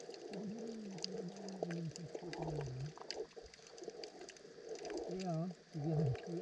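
Muffled human voice heard through water, a person humming or calling in gliding, wordless phrases, over a scatter of sharp underwater clicks.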